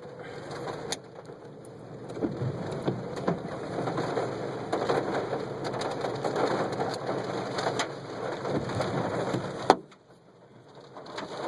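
Hailstones pelting a car's roof and glass, heard from inside the cabin: a dense clatter of many sharp impacts that grows louder about two seconds in and cuts off suddenly with a loud click near the end.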